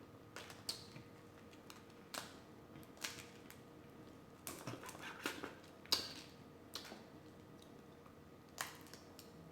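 Quiet mukbang eating sounds from a seafood boil: scattered sharp clicks and cracks of shellfish shells being broken and peeled, with wet mouth sounds, about a dozen in all, the loudest about six seconds in.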